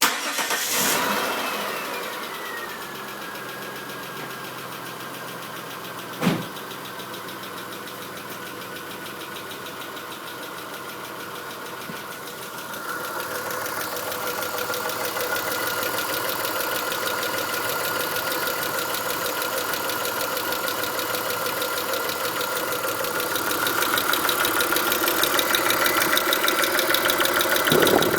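Chrysler 2.5L V6 engine starting, its pitch settling over the first couple of seconds, then running with a rapid ticking knock. It gets louder about 13 seconds in and again near the end. The noise follows a timing belt job in which the cam slipped, and the owner fears valves touched the pistons and damaged something in the head.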